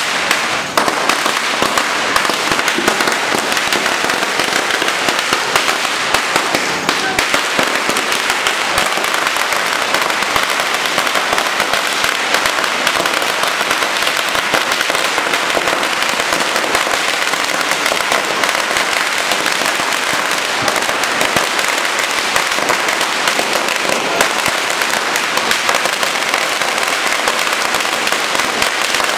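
Firecrackers going off in a continuous, rapid crackle of bangs that never lets up, as when long strings of Chinese firecrackers are lit.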